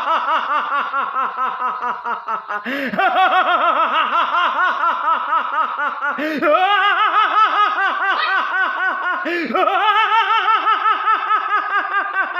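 A man's theatrical villain laugh, the Ravan laugh: long runs of rapid, evenly pulsed 'ha-ha-ha', each slowly falling in pitch, breaking off and starting afresh three times, about three, six and nine and a half seconds in.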